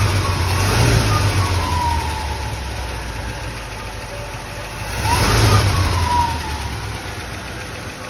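1970 Chevrolet C10's 307 small-block V8 revved and easing back, then revved again about five seconds in before settling toward idle, run as a check of whether an earlier knock has cleared.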